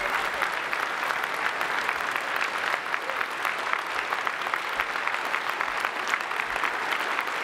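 Large audience applauding, dense, steady clapping from a hall full of people.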